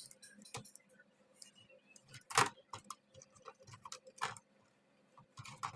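Scattered light clicks and taps from handling an LED TV and its motherboard on the workbench, with two louder knocks about two and a half and four and a quarter seconds in, over a faint steady hum.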